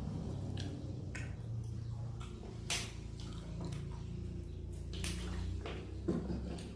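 Close-miked eating: a person chewing fried chicken with rice, with several sharp crunches and mouth smacks over a low steady hum.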